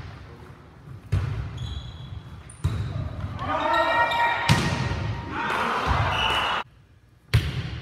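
A volleyball is struck with sharp slaps of the hands about four times in a rally, each hit echoing around the gym hall, with a player's voice calling out in the middle.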